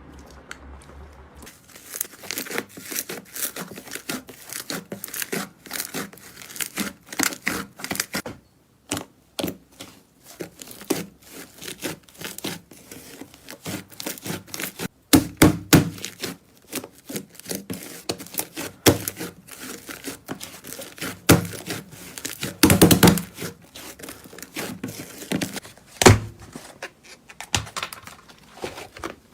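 Slime being squeezed and pressed by hands, giving a dense run of small crackles, clicks and pops, with a few heavier thuds from about halfway on.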